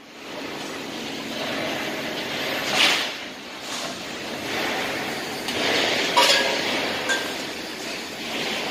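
Steady mechanical noise from machinery in an industrial yard, with a few short metallic clinks and knocks, the loudest about six seconds in.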